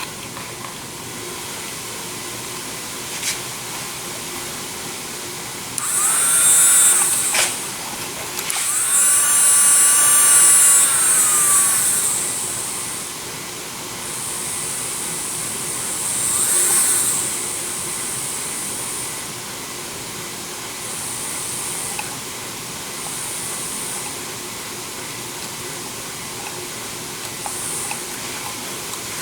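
High-speed electric dental-type micromotor drill, rated to 30,000 RPM, running in bursts with a high whine. Two long runs come about six and nine seconds in, the second winding down with a falling pitch, followed by shorter, fainter runs.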